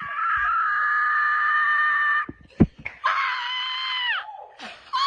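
A woman screaming with joy in celebration: one long, high scream held for about two seconds, a sharp knock, then a second scream that falls away, and a wavering cry beginning near the end.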